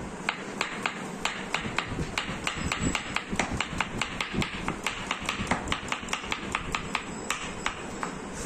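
Knife chopping on a cutting board: quick, uneven taps, about five a second, over a steady low hum.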